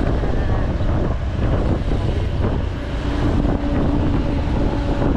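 Road traffic and engine rumble heard from a moving vehicle, with wind buffeting the microphone; a steady engine drone comes in about three seconds in.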